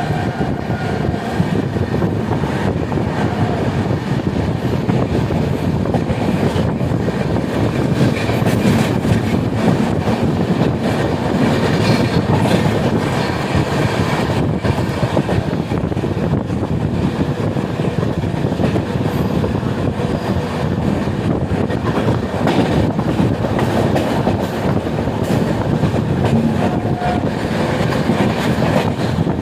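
Express passenger train running at speed: a steady rumble of wheels on rail with a continuous clickety-clack of wheels over rail joints.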